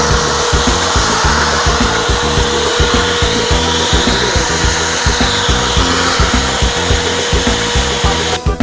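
A power tool running steadily, with a steady hum, over background music with a beat; the tool cuts off near the end, leaving the music.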